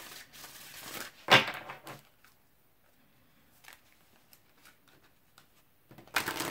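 Oracle cards being shuffled by hand: a brief rustle of cards about a second in and another near the end, with a quiet pause between them.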